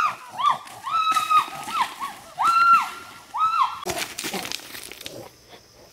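A person's voice giving about five short, high-pitched wailing cries in quick succession. The cries stop about four seconds in, and crunching steps on loose stones follow.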